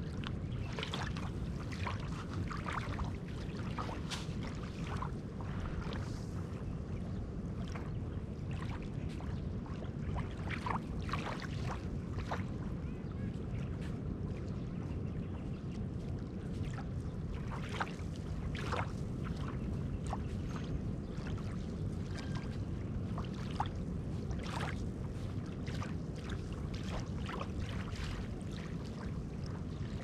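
Small wavelets lapping on a sandy beach at the edge of a calm sea: many small, irregular splashes and trickles over a steady low rumble.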